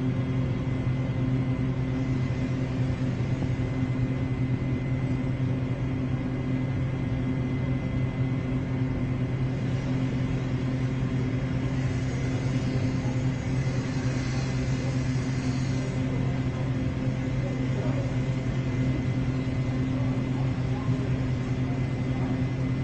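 A steady low hum with a faint high whine held on one note, unchanging in level.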